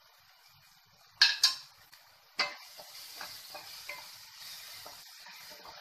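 Chopped tomatoes and onions frying in oil in a pan. A metal spoon clinks on the pan twice, knocks once more, and then a steady sizzle runs on as the mixture is stirred.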